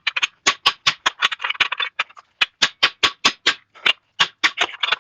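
Rapid hammer blows on a fuller set into hot steel on the anvil, about four to five strikes a second with a short metallic ring after each and brief pauses twice. This is fullering the hammer head next to its eye, drawing the material away from the eye.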